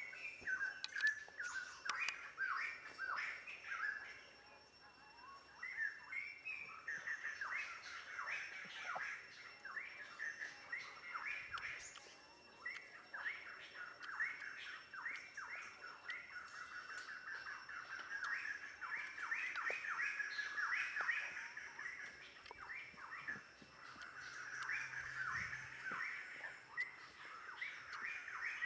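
Small birds chirping: a dense, continuous run of short, quick calls.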